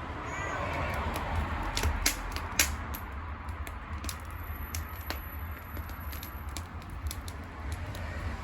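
Wood bonfire crackling, with scattered sharp pops, the loudest about two and a half seconds in, over a steady low rumble.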